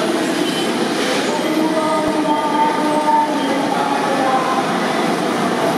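Manila LRT Line 1 electric light-rail train pulling into an elevated station platform. It gives a steady rolling rumble with several whining tones from its motors and wheels on the rails.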